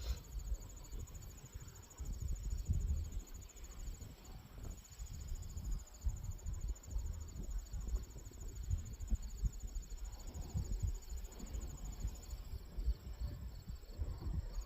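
Insects trilling, a steady high buzz with a faint even pulse, over an uneven low rumble.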